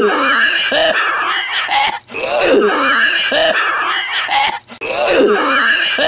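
A man's loud, harsh smoker's cough, hacking over and over with only brief breaks about two seconds in and again near the end.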